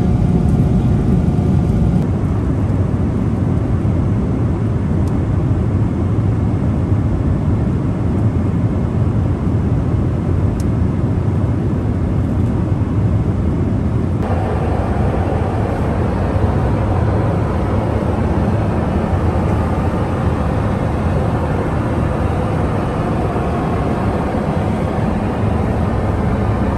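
Boeing 777-300ER jet aircraft noise, a loud, steady, even rush weighted to the low end. It changes abruptly about two seconds in, and again about fourteen seconds in, when it turns fuller and brighter.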